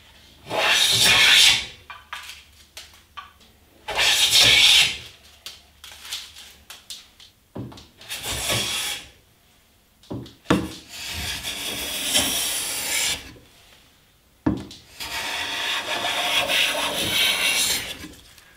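Hand bench plane with a freshly sharpened iron taking shavings off a board: five cutting strokes, the first two short, the last two longer at about three seconds each, with small knocks between them as the plane is lifted and set back.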